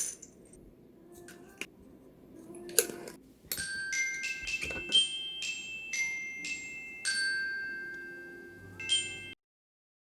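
Background music of bright bell-like mallet notes, glockenspiel-style, struck one after another, each ringing on and fading, after a few faint taps. The sound cuts off abruptly near the end.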